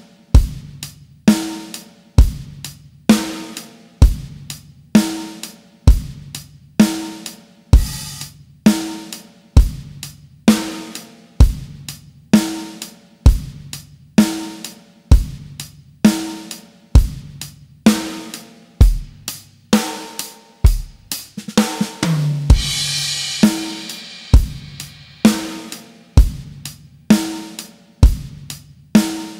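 Drum kit playing a steady pop beat at 65 beats per minute in 4/4, kick and snare alternating with one hit on every beat. About 20 seconds in, a short fill leads into a crash cymbal that rings for a second or two before the beat carries on.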